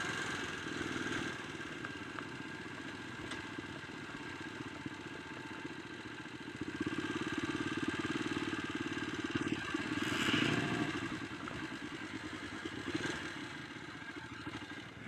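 Dirt bike engine running at low road speed. It picks up and runs harder from about halfway through, then eases off and dies down near the end as the bike slows.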